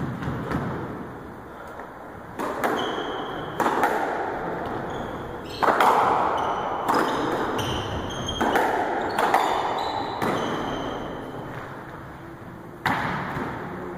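Squash rally: about ten sharp cracks of the ball off the rackets and the walls, each ringing in the enclosed court, with short high squeaks of shoes on the wooden floor in between.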